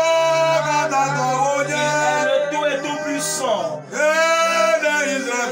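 A man singing a slow French worship song in long, held, wavering notes, with a short breath break about two-thirds of the way in, over a steady instrumental backing.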